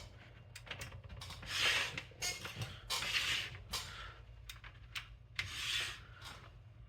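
Hands handling a desktop computer and plugging in its power cable: a series of rubbing, scraping bursts and a few sharp clicks over a faint low steady hum.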